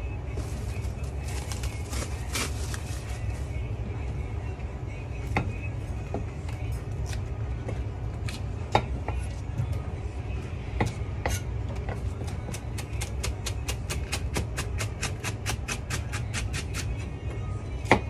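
Chef's knife chopping green negi tops on a white plastic cutting board: a fast, even run of strokes, about five a second, in the second half, ending with a loud strike. It follows scattered knocks and taps on the board, and a steady low hum lies beneath.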